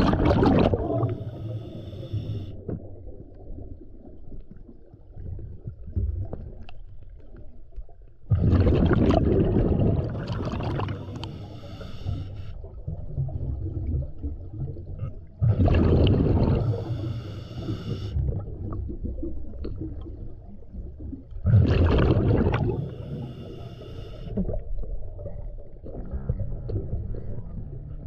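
Scuba diver breathing through a regulator underwater, with a loud rush of exhaled bubbles three times, about every six to seven seconds, and a quieter gurgling rumble in between.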